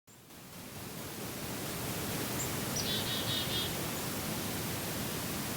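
Steady outdoor background hiss that fades in at the start, with a short bird trill of quick repeated notes about three seconds in.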